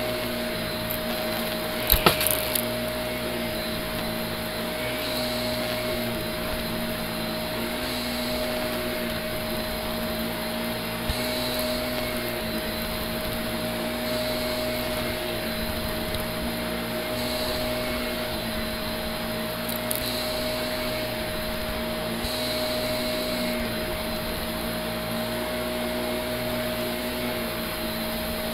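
Green Shark Navigator upright vacuum running steadily while pushed back and forth over carpet, its motor holding a constant whine over a lower hum. A short burst of sharp clicks comes about two seconds in, with single clicks later on.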